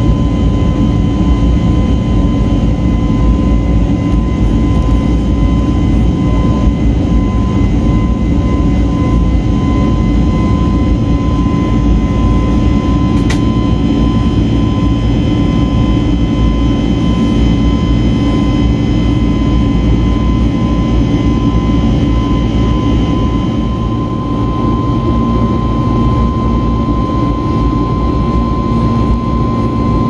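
Airliner turbofan engines heard from inside the passenger cabin in flight: a steady deep roar of engine and air noise with a steady high whine on top.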